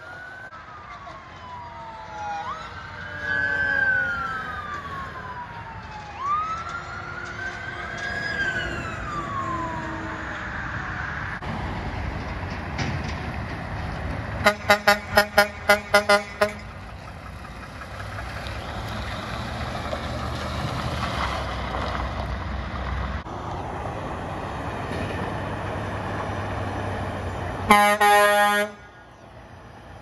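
A siren wailing, rising and falling in pitch, through roughly the first ten seconds, then heavy trucks passing. About fifteen seconds in, an air horn gives a rapid run of about seven short toots, and near the end there is one longer horn blast.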